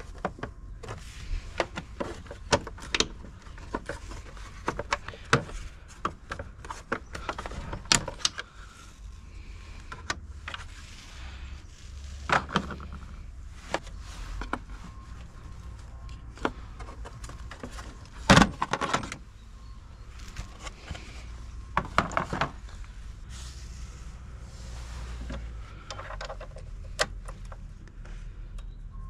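Hands and tools working around a car battery in an engine bay: scattered clicks, taps and knocks of plastic covers and metal tools being handled, with a few louder knocks about 12, 18 and 22 seconds in.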